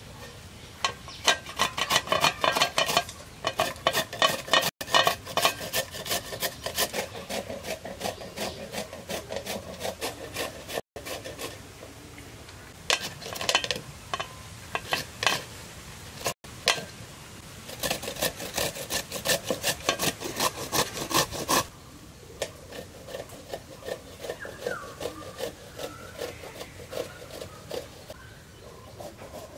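Raw green papaya being grated on a metal hand grater: quick repeated strokes, several a second, in runs of a few seconds, quieter near the end.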